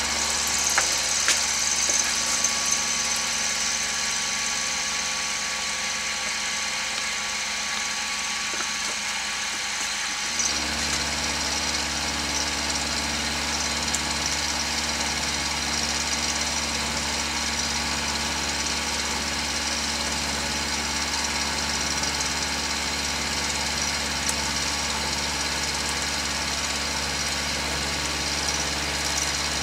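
Milling machine running, its end mill cutting a spiral groove into a steel screw cone for a log splitter: a steady motor hum with a high-pitched cutting hiss. A deeper low hum joins about ten seconds in.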